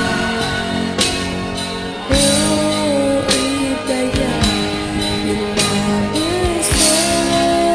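Karaoke music: a backing track with guitar and drums under a voice singing the melody.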